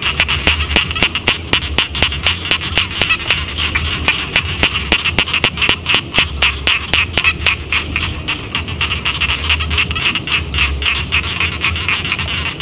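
Chorus of rice-paddy frogs calling: a dense, fast train of overlapping croaks, about five pulses a second, over a low rumble.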